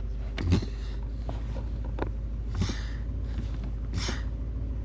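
Porsche 928 S V8 idling steadily while the brake pedal is pumped, with a thump about half a second in and a few short hissing bursts.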